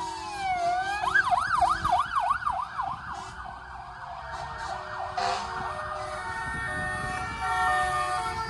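Fire vehicle sirens passing in a convoy: a slow falling wail switches about a second in to a fast yelp of about three sweeps a second, which fades away, and steadier siren tones build again near the end as the next fire vehicle comes by.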